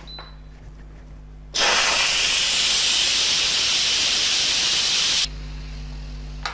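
Steam hissing out of an Instant Pot electric pressure cooker's steam release valve during a quick pressure release. The loud hiss starts suddenly about a second and a half in and cuts off suddenly about four seconds later.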